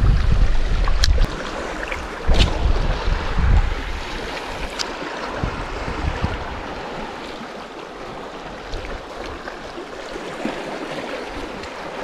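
Wind gusting over the microphone in heavy low rumbles during the first few seconds, then a quieter steady wash of small waves lapping among rocks at the shoreline. A few sharp clicks stand out in the first five seconds.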